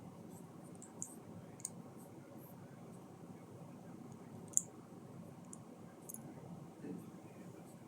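Small sharp plastic clicks of Lego pieces being handled and pressed together, a scattered handful over a faint background, the loudest about four and a half seconds in.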